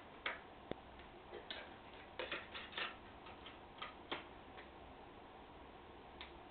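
Faint, scattered small plastic clicks and taps from a Huawei U8220 phone being handled, its back battery cover pressed and snapped into place, with a quick run of clicks about two to three seconds in.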